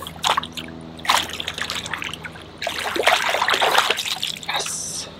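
Water splashing as a large wels catfish is let go from a landing net at the bank and thrashes off into the lake. A few short splashes come first, then a longer burst of splashing from about two and a half seconds in.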